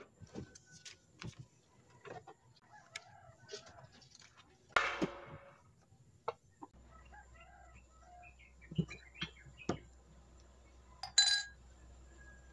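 Desk items being handled and set down: scattered light taps and knocks, a louder rustling scrape about five seconds in, and a glass tumbler set down on the desk with a bright knock near the end.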